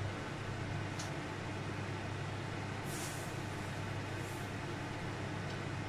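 A running fan's steady low hum and even rushing noise, with a few faint, brief rustles or clinks as ingredients go into a steel pot.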